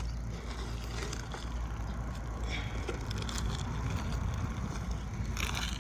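Hands digging through loose potting soil in a grow box, with faint scattered rustles and crunches and a louder rustle near the end, over a steady low rumble.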